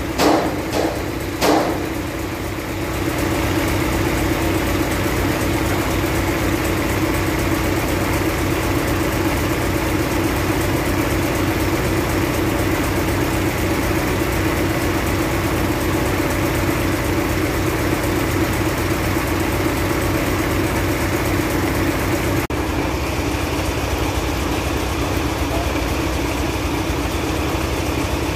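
Concrete mixer truck's diesel engine idling steadily, a little louder from about three seconds in. A few sharp knocks come in the first couple of seconds.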